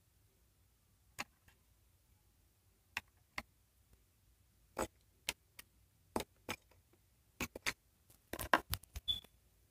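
Scattered light clicks and taps, a few seconds apart at first and bunching into a quick cluster near the end.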